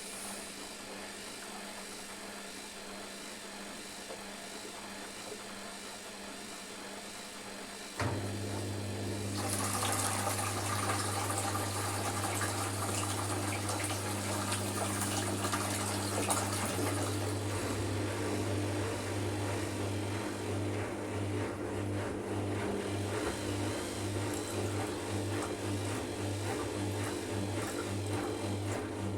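Hotpoint washing machine on its rinse cycle: about 8 seconds in, a click, and water starts rushing into the drum with a steady hum, running on to the end and pulsing rhythmically in the second half.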